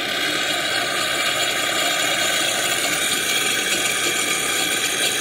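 Mr. Coffee One-Touch CoffeeHouse espresso machine running steadily, its 19-bar pump pushing hot water and steam out through the milk frother spout into a pitcher, with a steady hiss. This is the priming run done before first use.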